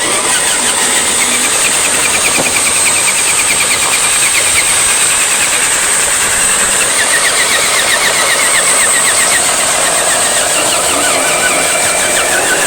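A vehicle motor running steadily for the whole stretch, with a constant high-pitched whine and a fast, even rattling ripple above the running noise.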